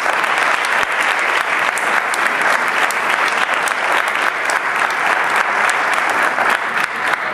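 Theatre audience applauding: steady, dense clapping that begins to ease near the end.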